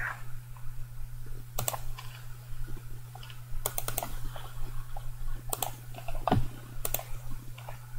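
Scattered clicks of a computer keyboard and mouse in use, a few at a time with pauses between, over a steady low electrical hum; one louder knock comes about three-quarters of the way through.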